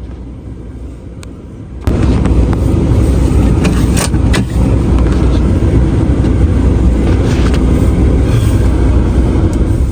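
Snow-plowing vehicle's engine running steadily with a loud, low rumble. It is much quieter for the first two seconds, then cuts in abruptly at full level.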